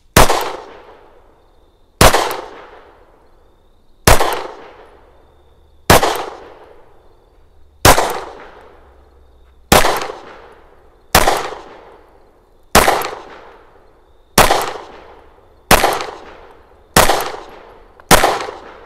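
FN 509 CC Edge 9mm pistol with its compensator, firing about a dozen single shots of 125-grain TPJ ammunition in slow, deliberate fire. The shots come about two seconds apart at first and quicken to about one to one and a half seconds apart, each with a short echoing tail.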